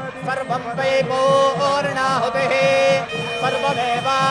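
Indian devotional ceremony music: a melody with bending notes over a steady held drone note, with a repeating low rhythmic pulse beneath.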